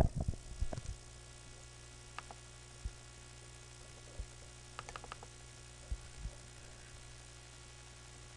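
Faint steady electrical mains hum, with a few scattered soft clicks and low thumps.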